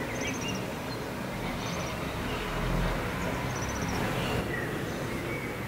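Steady distant rumble of rail-yard and town noise, with a small bird giving three short runs of high, quickly repeated chirps.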